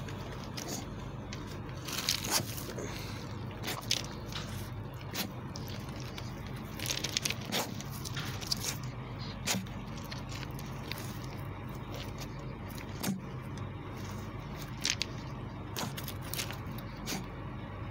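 Staffordshire bull terrier nosing soil and small stones over a buried treat: short, irregular scrapes and crackles of dirt, a dozen or so, over a steady low background hum.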